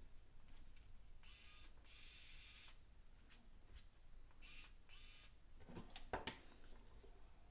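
Faint handling sounds of small plastic tool parts being fitted into a case: a stretch of soft scraping about a second in, then a few light clicks.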